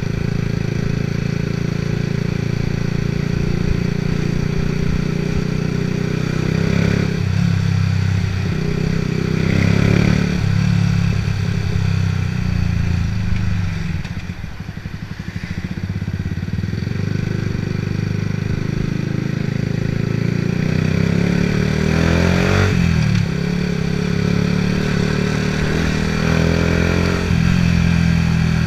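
Yamaha R125's 125 cc single-cylinder four-stroke engine running through a Scorpion exhaust with the dB killer removed, the revs rising and falling several times. About halfway through, as the revs drop off, the exhaust crackles and pops on the overrun.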